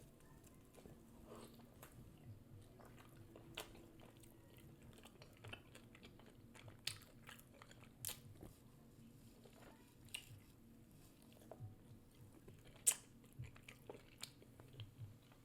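Close-miked eating: quiet chewing and biting, with a scattering of sharp crisp crunches and mouth clicks, the loudest about 13 seconds in.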